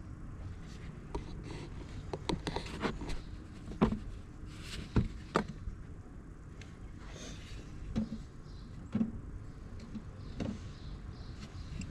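Plastic oil jug being handled and tipped into the engine's oil filler, with scattered clicks and knocks, the sharpest about four and five seconds in, over a low steady rumble.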